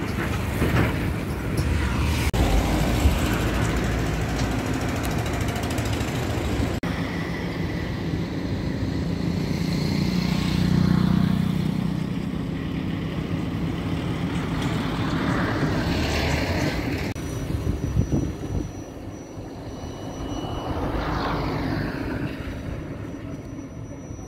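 Motor vehicles passing close by one after another, each swelling and fading, over a steady rumble.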